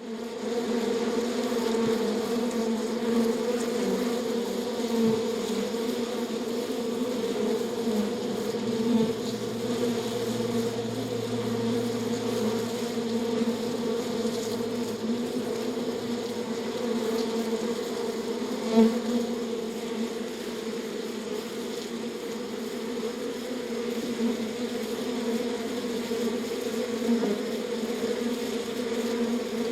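Bees buzzing, a steady, continuous hum with a brief louder moment a little past the middle.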